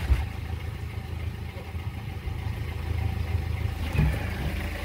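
Yanmar 4JHE four-cylinder marine diesel engine idling steadily, with a faint knock about a second and four seconds in.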